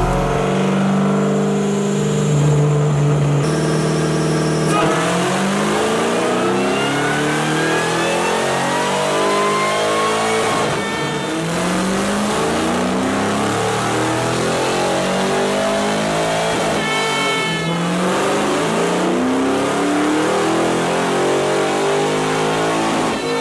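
2003 Mustang Cobra's supercharged 4.6-litre DOHC V8, fitted with a VMP 2.3L TVS supercharger, running under load on a chassis dyno. After a few seconds of steadier running, the engine climbs in pitch three times, each climb lasting about six seconds. A thin supercharger whine rises along with it.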